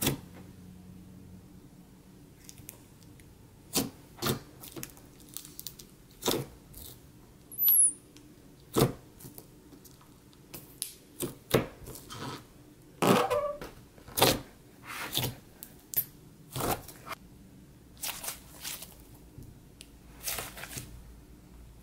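Fingers poking, pressing and stretching a thick, glossy slime: irregular sticky clicks and small pops, roughly one or two a second, with a longer crackling stretch about halfway through.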